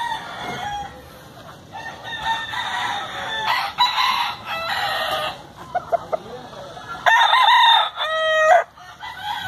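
Gamecocks (fighting roosters) crowing: several drawn-out crows overlap through the middle, a few short clucks follow, and the loudest crow comes near the end.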